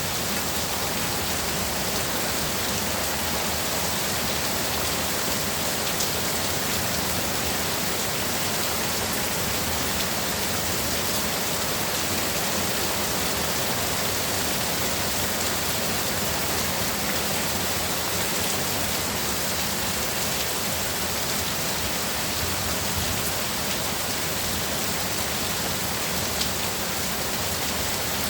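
Heavy rain pouring steadily, a dense even hiss with a few sharper drop hits here and there.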